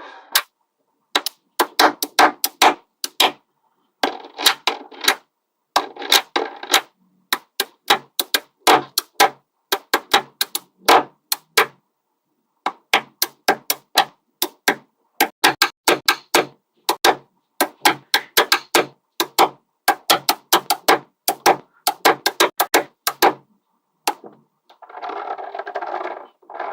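Small neodymium magnetic balls snapping together: quick runs of sharp clicks, several a second, broken by short pauses. Near the end comes a denser rattling shuffle of the balls.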